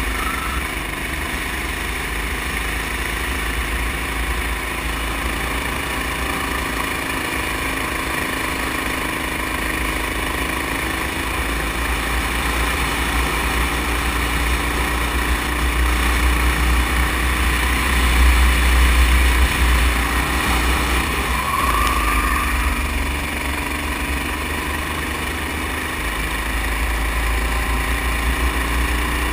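Go-kart engine running at speed on board, over a heavy low rumble. A little past two-thirds of the way through, the engine note dips and then climbs back up.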